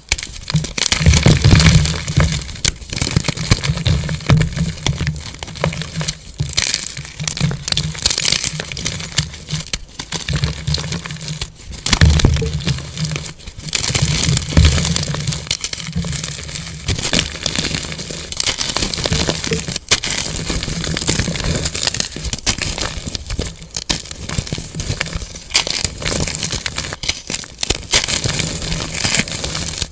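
Blocks of plain white gym chalk crushed and crumbled between bare hands: a continuous stream of crunching and crackling, with sharper cracks as chunks snap apart.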